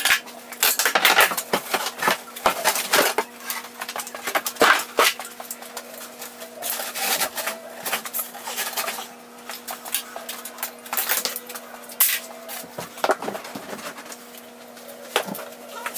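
Irregular knocks, taps and scrapes from hand work on wood wall paneling, over a steady low hum.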